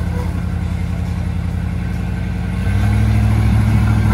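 Off-road rock crawler's engine running at low revs, then throttled up a little about two-thirds of the way in and held at the higher, louder pitch.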